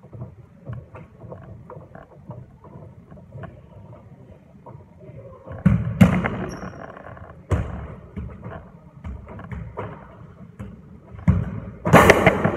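Footsteps and shoe scuffs on a wooden squash court floor during movement drills: a steady patter of light taps, with louder thuds about six, seven and a half and twelve seconds in.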